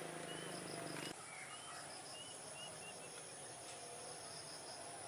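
Night insects chirping in a steady pulsed trill, with a run of short high chirps over it; a low hum stops about a second in.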